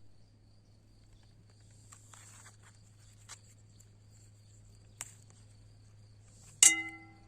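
A sudden loud strike near the end that rings on briefly with several clear tones, over a steady low hum, faint high steady tones and two small clicks.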